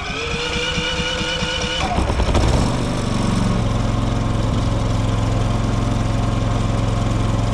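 Predator inverter generator running on natural gas being started: a short whine of starting for about two seconds, a rough moment as it catches, then the engine settles into a steady run.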